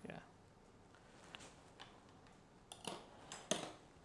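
A few light clicks and taps of plastic marble-run parts being handled, mostly in a short cluster about three seconds in.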